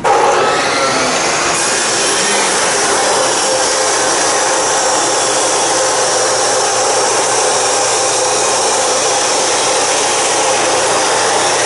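Chop saw cutting metal: a loud, steady noise.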